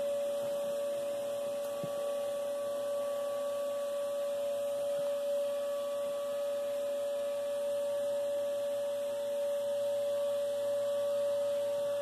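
Vacuum cleaner running steadily, a constant whining hum on one unchanging pitch.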